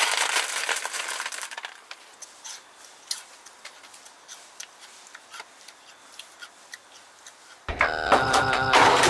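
Dry cereal pouring from a box into a bowl, a rattling hiss for about the first second and a half, then sparse light clicks of a spoon in the bowl. Music with a low beat comes back in near the end.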